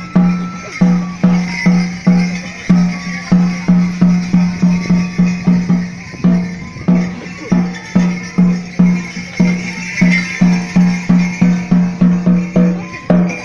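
Folk dance music led by a drum beaten in a fast, steady rhythm, about two to three strokes a second, with a thin high melody line above it.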